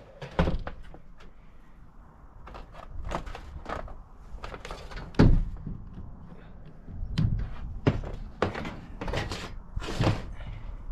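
Irregular knocks, clunks and short scrapes of hand tools and metal hardware being worked against a solar panel racking rail, the loudest thunk about five seconds in.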